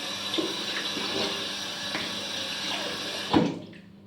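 Water tap running steadily into a sink, shut off about three and a half seconds in, with one short sharp sound just before it stops.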